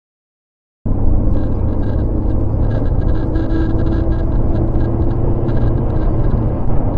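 Silence, then after just under a second a sudden start of steady road and engine rumble from a car driving at speed, heard from a dashcam inside the cabin. A faint steady tone rises out of the rumble for a couple of seconds in the middle.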